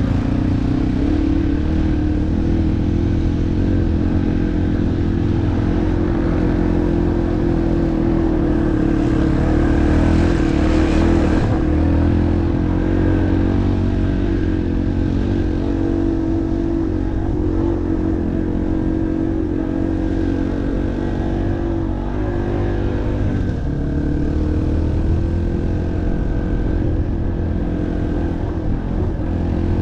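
Yamaha off-road motorcycle engine running steadily while being ridden, its pitch rising and falling gently with the throttle. About ten seconds in it gets louder and harsher for a couple of seconds.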